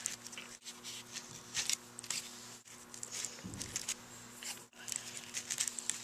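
Black tape being wrapped by hand around small wires, giving faint, irregular crackling and rustling. A steady low hum runs underneath.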